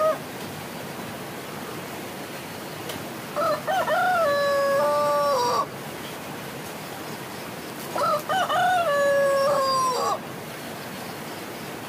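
A rooster crowing twice, each crow about two seconds long with a long held note that drops at the end, over a steady background hiss; the tail of an earlier crow ends right at the start.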